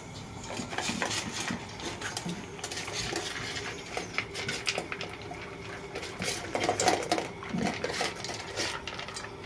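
A puppy eating food from a metal bowl, with a continuous run of irregular clinks and scrapes against the bowl.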